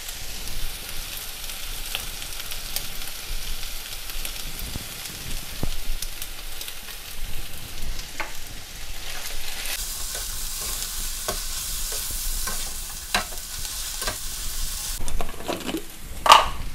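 Fried noodles, sausage and greens sizzling steadily in a nonstick frying pan on a gas hob while being stirred and tossed, with scattered knocks and scrapes of the utensil against the pan and a louder clatter near the end.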